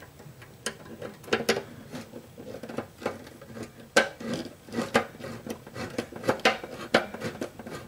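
Hand screwdriver driving the retaining screw into the metal housing of a Cadet in-wall fan heater: irregular clicks and short scrapes of metal on metal, about two a second.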